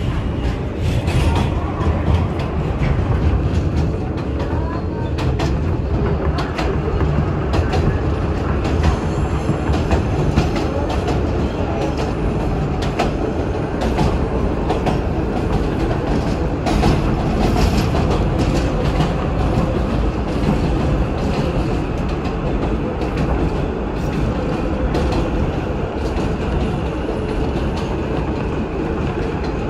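Ride noise of an R160B New York City subway car running between stations: a steady rumble with wheels clicking and clacking over rail joints.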